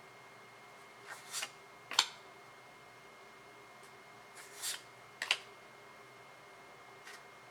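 Trading cards being handled: twice a short sliding swish of card against card, each followed by a sharp tap as a card is set down or flicked, with a faint tick near the end.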